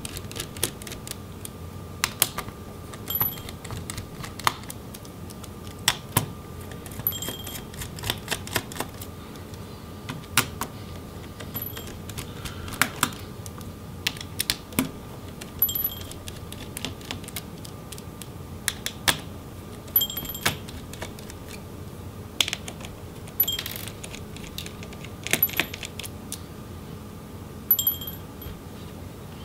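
Scattered small clicks and light metallic ticks, a second or two apart, from a Phillips screwdriver backing out the tiny motherboard screws of a Lenovo ThinkPad X1 Carbon 7th Gen laptop.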